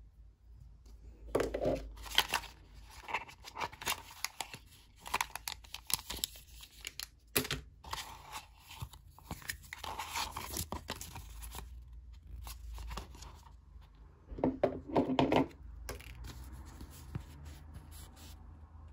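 Hands unpacking a Zuru Rainbocorns surprise egg: plastic packaging crinkling and tearing, with irregular clicks and knocks of hard plastic parts. Two brief louder bursts of rustling stand out, one about a second and a half in and one near three-quarters through.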